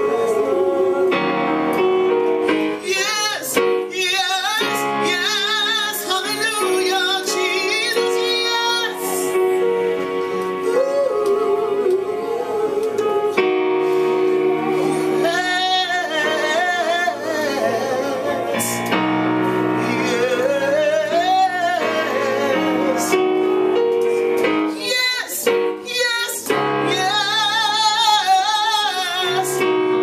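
A woman singing with a wide vibrato, accompanying herself on an electronic keyboard with sustained chords.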